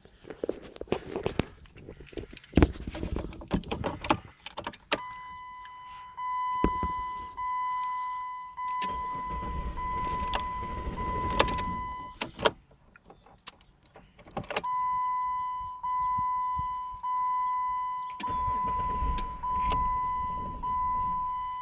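2008 Jeep Commander's electronic warning chime: a steady beep pulsing about once a second, in two long runs broken by a pause, while a hot engine refuses to restart. Clicks and jangling come between the runs, and a low rumble sits under the later part of each run.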